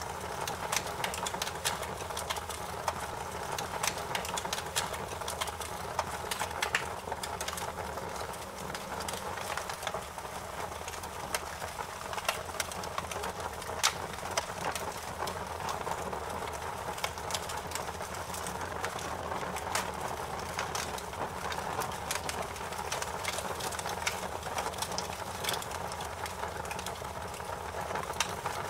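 Fire crackling in a fireplace: a steady hiss with frequent, irregular sharp pops and snaps.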